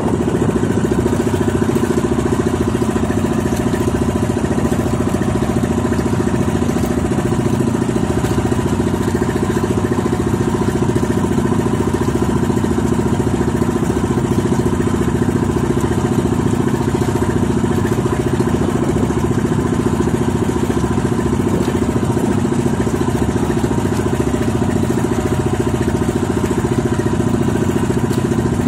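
Motorboat engine running steadily, heard from aboard the boat, with the wash of the water under it.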